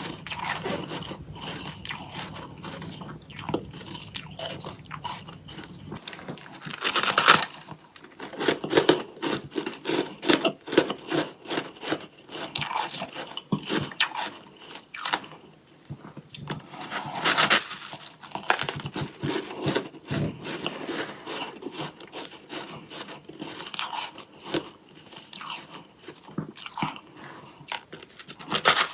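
Close-miked biting and chewing of freezer frost, a dense crackling crunch, with two loud bites about a third and two thirds of the way through, each followed by a run of quick chewing crunches.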